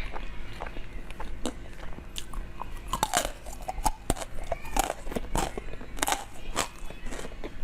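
Close-miked mukbang eating: crunchy bites and chewing, a string of sharp, irregular crackles.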